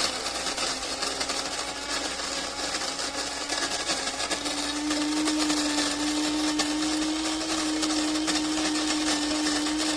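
Cuisinart DBM-8 electric burr coffee grinder running, its motor and burrs grinding coffee beans with a steady whirr. The motor hum steps up in pitch about halfway through.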